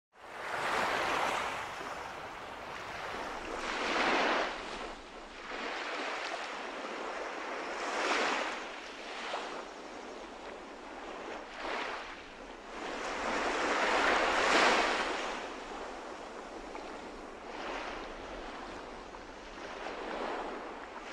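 Sea waves breaking, a rushing noise that swells and fades every three to four seconds.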